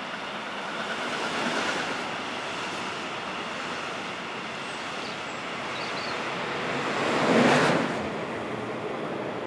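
Passenger train running past on the tracks below: a steady rush of wheels on rails that swells as the train comes underneath and is loudest about seven and a half seconds in, as its last cars go by.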